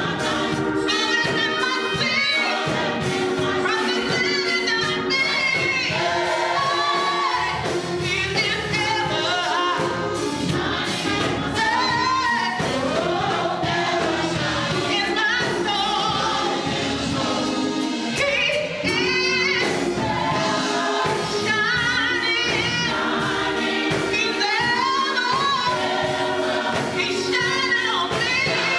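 Gospel choir singing with a live band: a trumpet, keyboard and drum kit play along under the massed voices.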